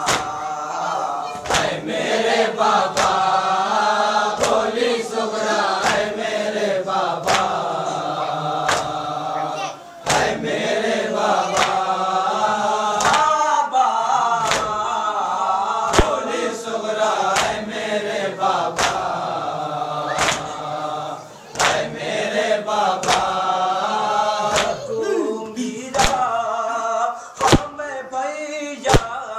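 A group of men chanting a Muharram noha (Shia lament) in unison, with sharp slaps about once a second, the chest-beating (matam) that keeps time with it. The chant breaks briefly twice between lines.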